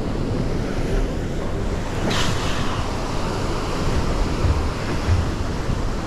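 Sea surf washing steadily against the shore, with wind buffeting the microphone and a brief louder rush of water about two seconds in.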